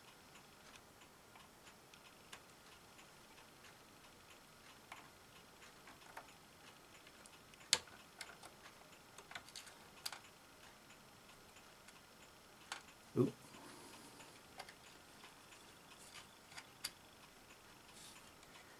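Sparse, faint clicks and ticks of a small hand tool against the plastic and metal parts of a Betamax tape mechanism as the old loading-ring belt is worked off its pulley, with a few sharper clicks about eight and thirteen seconds in.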